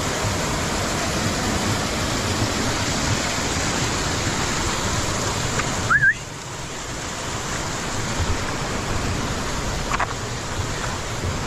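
Rushing water of a mountain stream, a steady noisy hiss. About six seconds in there is a brief high rising chirp, and the rushing drops suddenly, then slowly builds back up.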